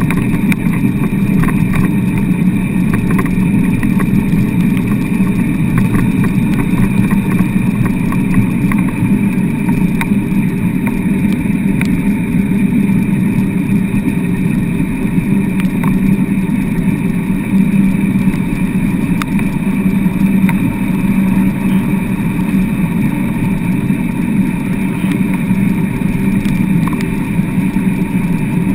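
Steady rumbling of a dryland dog rig's wheels rolling over wet beach sand at running speed, with a few light ticks now and then.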